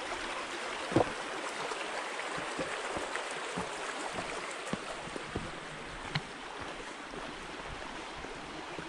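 A small, shallow stream rushing steadily over rocks. A few short knocks sound over it, the loudest about a second in.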